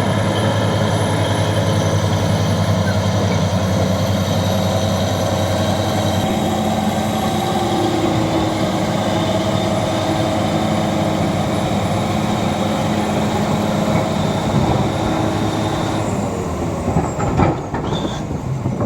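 Bulldozer's diesel engine running steadily under load, easing off near the end with a few sharp knocks.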